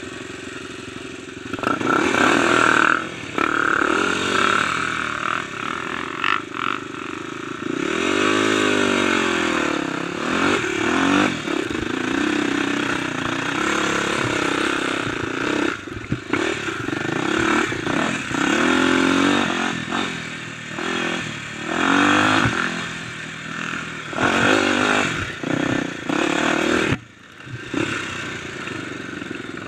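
Dirt bike engine revving up and down over and over as it is ridden up a rough, steep singletrack trail, close to the bike, with rattling from the bike over the bumps. Near the end the engine note drops away sharply for a moment before picking up again.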